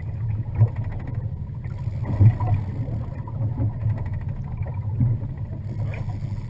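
Boat motor running steadily with a low hum, with a few short knocks.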